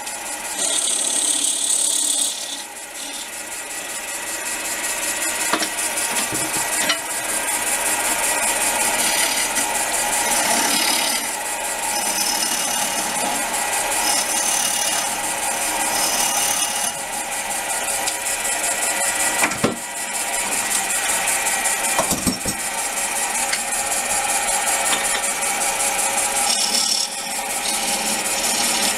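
Small 370-watt wood lathe running while a scraper made from a drill bit cuts into the spinning wooden bowl blank. The scraping of the tool on the wood is continuous and rasping over the motor's steady hum, with a few sharp knocks.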